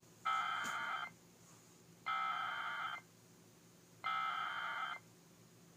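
Emergency Alert System header: three identical buzzing data bursts, each just under a second, about two seconds apart, marking the start of an emergency alert broadcast.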